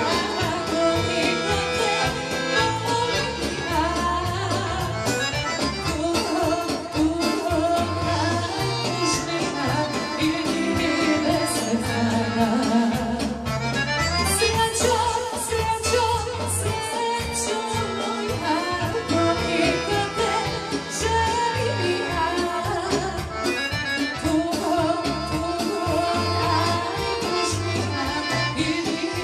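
Live amplified folk music: a woman sings into a microphone over accordion and keyboard, with drums keeping a steady beat.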